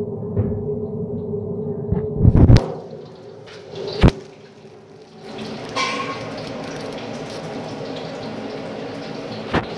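Knocks from the phone being handled, then from about halfway a steady sizzling hiss of potatoes deep-frying in hot oil.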